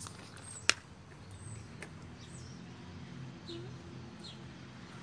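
Faint, short bird chirps over a steady low outdoor hum, with one sharp click about a second in and a smaller one shortly after.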